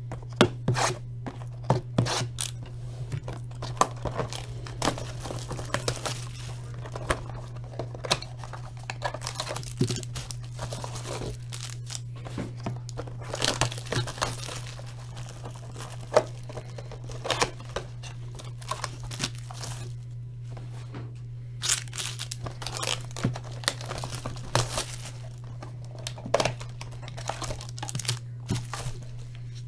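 Clear plastic shrink wrap being torn and crumpled off a trading-card hobby box, then the cardboard box being opened and handled, with irregular sharp crinkles and rustles throughout. A steady low hum sits underneath.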